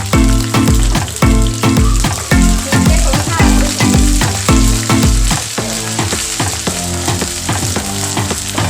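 Oil sizzling in a pan as small fish are fried for chorchori, under background music with a steady beat; the bass beat drops out about two-thirds of the way through.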